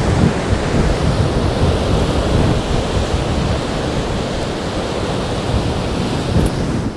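Storm waves on a big lake breaking against a rocky, ice-strewn shore in strong wind: a steady, loud rush of surf noise.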